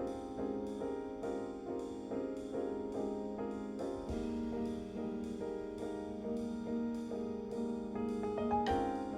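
Background music: a piano playing a steady run of notes, about two a second.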